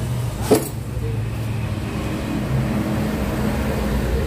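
A steady low mechanical rumble, with one sharp click about half a second in.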